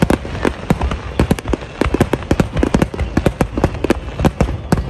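Aerial firework shells bursting in a rapid barrage: many sharp bangs and cracks, irregular and several a second, over a low rumble.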